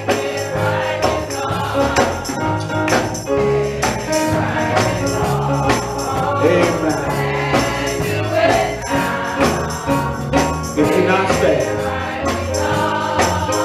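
Gospel music: choir voices singing over a bass guitar and keyboard with steady percussion.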